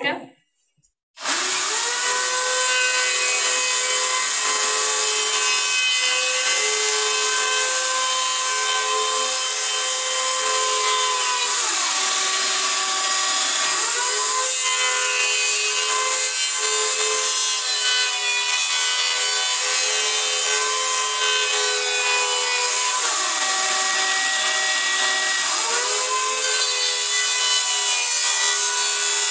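Drill Master handheld electric planer running as it shaves a weathered oak pallet board, cut depth set to 1/32 inch. It starts about a second in and runs steadily, with its pitch dipping and recovering twice, about halfway through and again near the end.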